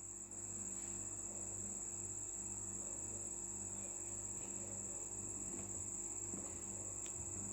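Faint steady background hum with a continuous high-pitched whine running under it, and no distinct work sounds.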